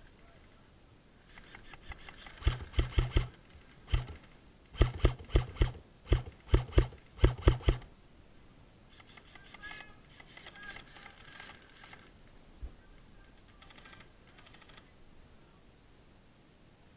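Airsoft rifle firing in quick strings of two to five shots, each a sharp clack with a low thud under it, about four or five shots a second, for roughly five seconds. Then fainter clicking and rattling follows.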